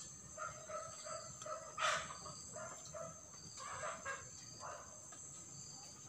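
Chickens clucking in short repeated calls, with one louder call about two seconds in, over a steady high drone of crickets or cicadas.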